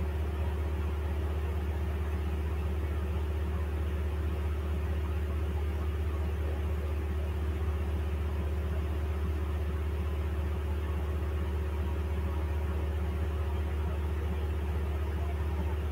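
A steady low hum, unchanging throughout.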